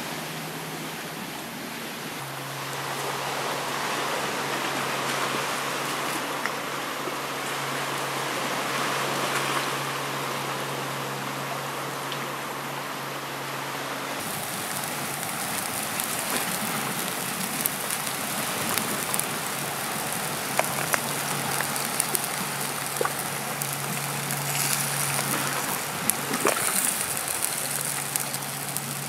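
Steady outdoor hiss, then from about halfway a wood fire crackling with sharp pops under a pan of water in which chitons are boiling.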